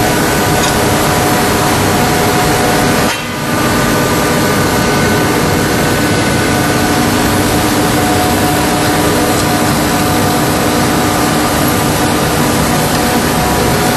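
Two-stage granulation line running: its electric motors and extruders make a loud, steady machine noise with several steady hums and whines in it. The noise drops away for a moment about three seconds in.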